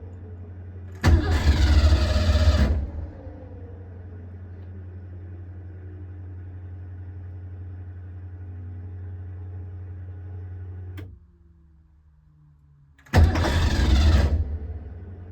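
An engine fitted with an Edelbrock Pro-Flo 4 fuel injection system being cranked by its starter in two short tries, about a second in and near the end, without catching: a no-start. Between the tries a steady low hum runs, then stops with a click and winds down.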